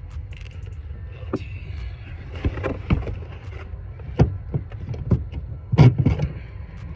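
Irregular knocks and clunks of hard plastic and tools as a 2005 Buick LaCrosse's tail light assembly is worked loose, the loudest cluster near the end, over a steady low rumble of wind on the microphone.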